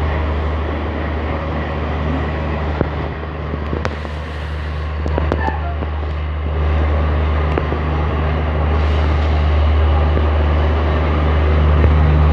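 Passenger train rolling slowly into a station, heard from an open coach door: a steady low hum and running noise, with a few faint clicks about four to five seconds in.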